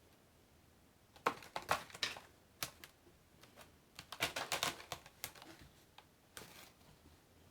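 Quick, light clicking and rattling in two irregular bursts, about a second in and about four seconds in, with a few single clicks between.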